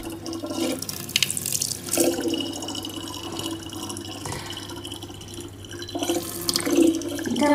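Thin stream of tap water running from a faucet and splashing into the neck of a plastic water bottle, with small irregular splashes.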